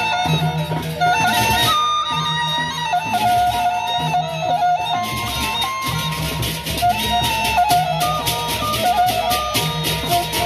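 Sasak gendang beleq ensemble playing: the big barrel drums beat a low pattern repeating about every second and a half, small hand cymbals clash in rapid strokes that swell and fade, and a melody of held notes runs above.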